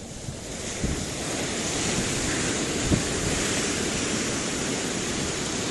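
Ocean surf washing onto a sandy beach, a steady rush that swells up over the first second or two, with wind buffeting the microphone.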